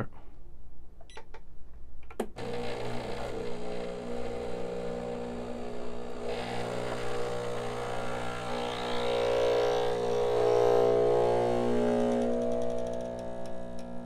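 Breville espresso machine's pump humming steadily as it pulls an espresso shot. The hum starts about two seconds in after a click and grows louder around the middle.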